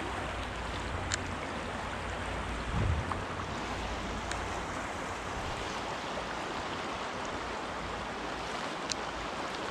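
Steady rush of a fast-flowing stream running over rocks, with two faint clicks, one about a second in and one near the end.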